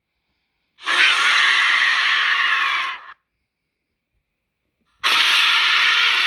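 Two raspy, breathy shrieks from the Substricter monster's vocal sound effects, each about two seconds long, separated by dead silence.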